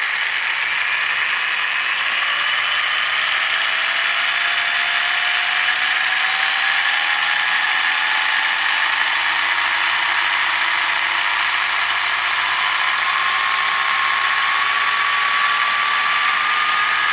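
Brushless motor and drivetrain of a Subida Mantis 1/16 RC buggy running at speed with the wheels spinning free, a loud whine that climbs slowly and steadily in pitch throughout. The owner thinks it sounded like something broke.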